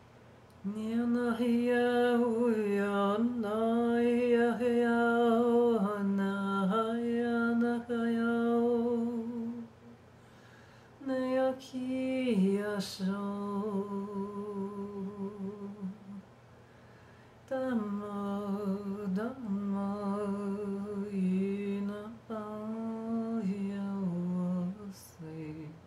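A woman humming a slow, wordless tune in three long phrases of held notes, with short pauses between them and each phrase settling lower in pitch toward its end.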